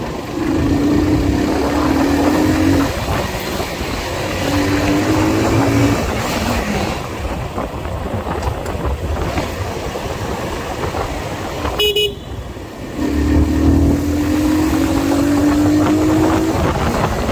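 Motorcycle engine running under the rider, its note coming and going in several stretches and shifting in pitch with the throttle, over a steady rush of wind and road noise. About twelve seconds in there is one brief sharp sound, followed by a short dip in the noise.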